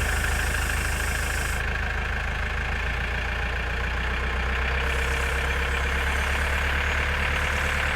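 JCB 4CX backhoe loader's diesel engine running steadily at a constant, even level.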